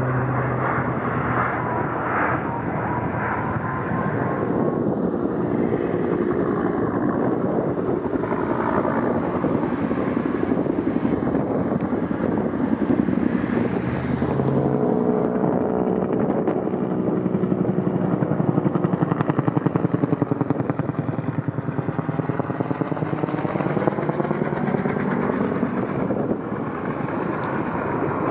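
Bell 214B-1 helicopter flying overhead, its two-bladed main rotor chopping over the turbine. The sound builds as it passes close overhead in the middle, with the pitch sweeping as it goes by, then eases off as it moves away.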